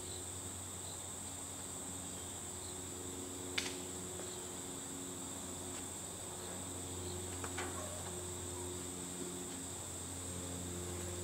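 Steady insect chorus, a continuous high-pitched trill with no break, over a low steady hum. Two faint clicks come through, about a third of the way in and again past the middle.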